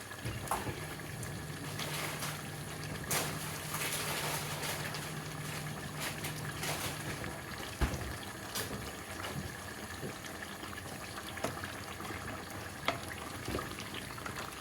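Water bubbling at the boil in a pot of tomatoes that are being boiled to loosen their skins, with a few light clicks and a low steady hum that stops about seven seconds in.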